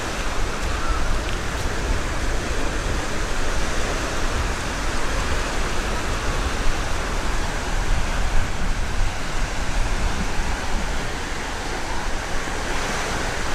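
Black Sea surf washing onto the beach: a steady rushing noise with no breaks.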